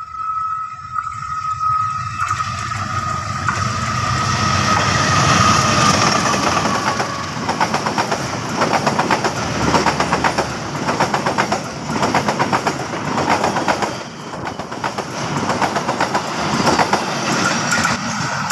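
Diesel-hauled passenger train passing at speed close by. A high whine slides down in pitch as the locomotive goes by. Then the coach wheels clatter rhythmically over the rail joints, the level swelling and dipping as each coach passes.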